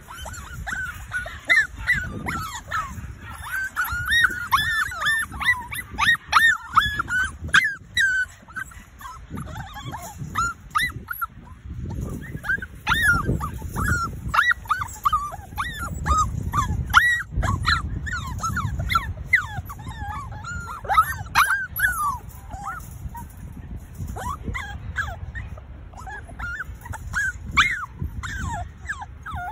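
A litter of Cavapoo puppies whimpering and yipping: many short, high-pitched cries overlapping almost without a break.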